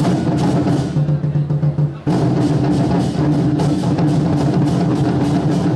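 Large red barrel drums beaten rapidly in rhythm with wooden sticks, with hand cymbals clashing along. The beating breaks off briefly about two seconds in, then carries on.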